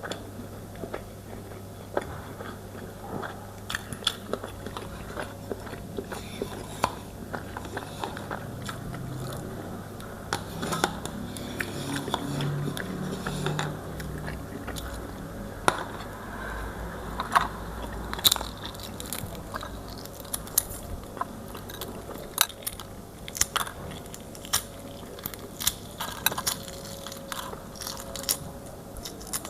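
Close-miked eating: chewing and biting with many sharp wet mouth clicks and smacks, some crunchy, over a steady low hum.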